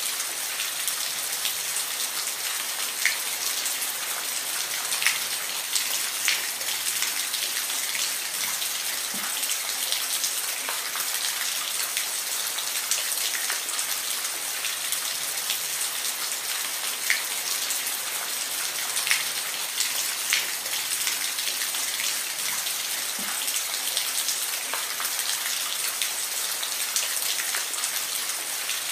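Steady rain falling, an even hiss with scattered louder drops hitting a surface.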